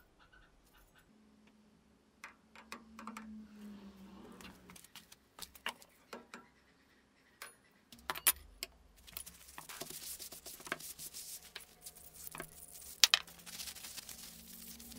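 Steel knife blade handled on a wooden workbench: scattered light clicks and taps of metal, then from about nine seconds in, a paper towel rustling and rubbing as the blade is laid on it and wiped, with one sharper knock near thirteen seconds.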